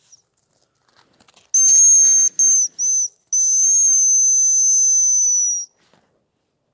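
Hazel grouse decoy whistle blown close by: high, thin whistled notes, a long one, two short ones and a long drawn-out one, imitating the hazel grouse's call. A few faint crackles come just before the whistling.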